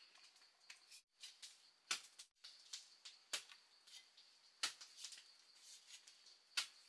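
Four faint, sharp knocks, each a second and a half to two seconds apart, over a faint steady high hiss.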